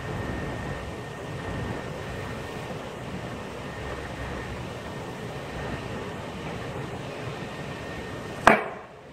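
A steel drop weight falls down a PVC guide pipe and strikes a bamboo section sitting on a star-shaped cutting blade near the end, one sharp bang with a brief ring. This is a test of how much weight is needed to chop the bamboo into rings. Before it there is a steady background hum with a faint high whistle-like tone.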